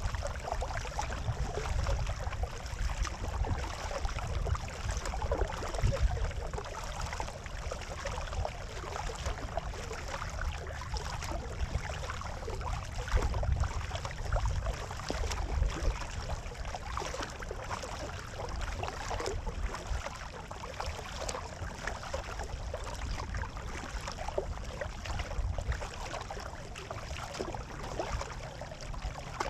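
Water rushing and splashing along a kayak's hull as it is paddled across calm water, a steady fizzing wash with a low, uneven rumble beneath.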